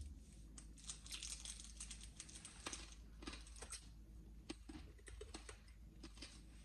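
Faint, irregular clicks and light rustling, several a second.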